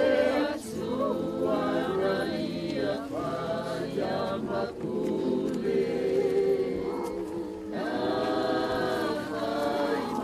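A group of people singing a hymn together without accompaniment, many voices in long held notes.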